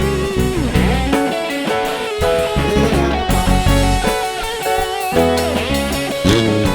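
Live band playing an instrumental passage: electric guitar lines with bending notes over bass guitar and drum kit.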